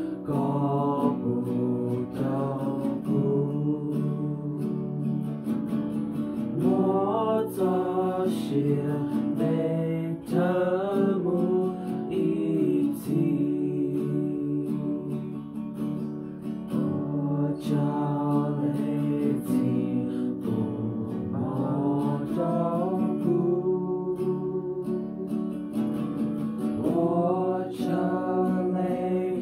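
Acoustic guitar, capoed, strummed steadily as accompaniment while a small group of voices sings a song together, the melody rising and falling in phrases.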